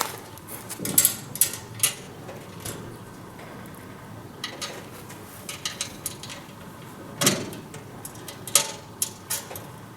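Irregular clicks and knocks of metal fan parts and tools being handled during assembly of a grain-heap aeration fan, with louder knocks about seven and eight and a half seconds in.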